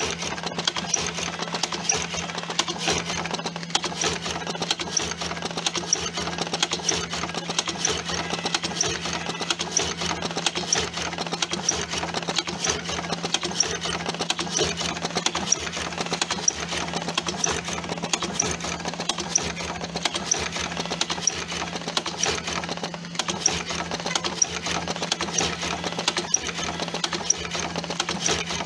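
TobaTech AG-01 electric cigarette tube filling machine running continuously as it fills tubes: a steady low hum under rapid, even mechanical clicking.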